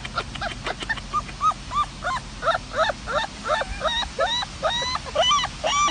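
Puppy giving rapid, repeated high yelping cries, about three a second, each one rising and falling in pitch. A few clicks come before them.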